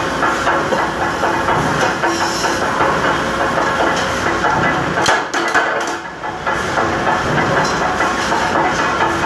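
Mechanical power press and workshop machinery running with a steady loud clatter and hiss, with a few sharp metal clanks about five seconds in.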